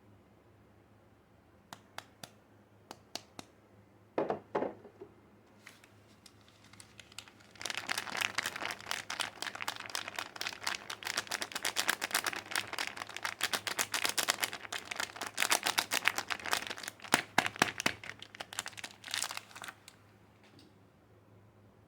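Soap packaging being unwrapped by hand: a few scattered clicks and a brief rustle, then a long spell of dense crinkling and tearing that stops about two seconds before the end.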